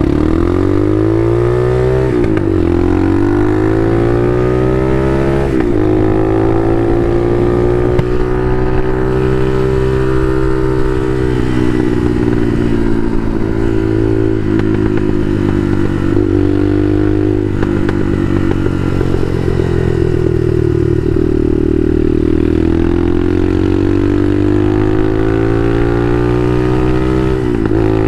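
Bashan Motomax 250 supermoto's engine pulling through the gears: the revs climb and drop sharply at two upshifts in the first six seconds. It then holds a steadier note with brief throttle dips, and revs up again before a last gear change near the end.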